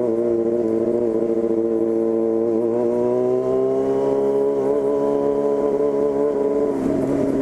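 Yamaha FZ6's 600 cc inline-four running through an open 4-into-1 racing exhaust, heard from the moving bike: steady revs, climbing gently about three seconds in, then falling off near the end.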